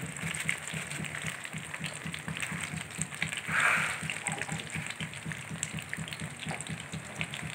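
Catfish and leeks frying in hot oil in a wok: a steady sizzle with scattered small crackles, swelling briefly to a louder hiss a few seconds in.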